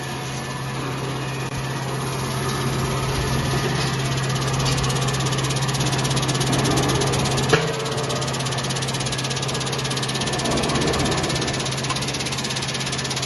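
Linear vibrating screen running: a steady low hum from its drive, with corn grits hissing and rattling across the vibrating mesh deck. One sharp knock about halfway through.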